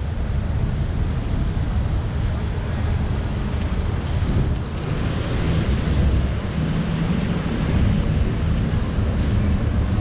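Wind rumbling on the microphone over steady city street traffic noise.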